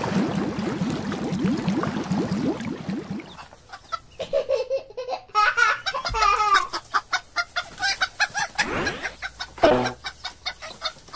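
A bubbling, gushing water sound effect for the first three seconds, then a domestic hen clucking in short repeated calls, with one louder drawn-out squawk about nine seconds in.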